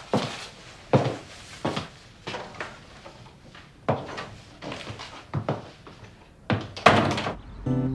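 Footsteps on a wooden floor, roughly one a second, walking away, then a louder knock near the end as a door is pushed shut.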